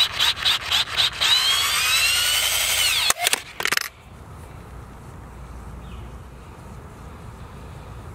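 Small handheld power tool cutting into white PVC pipe. It is triggered in several short pulses, then runs steadily with its whine dropping in pitch under load, then gives two more short pulses and stops about four seconds in, leaving only a faint low background.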